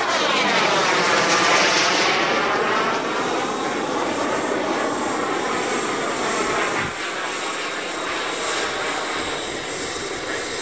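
Gas-turbine engine of a Comp-ARF BAE Hawk model jet making a close pass overhead: a steady jet rush and whine with a sweeping, phasing sound as it goes over, loudest about a second and a half in, then slowly fading as it flies away.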